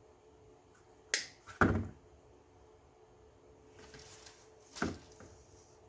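A few sharp clicks and knocks from small craft items being handled on a work surface while bee buttons are glued on: two a little after one second in, half a second apart, the second the loudest, a soft rustle around four seconds, and another click near the end.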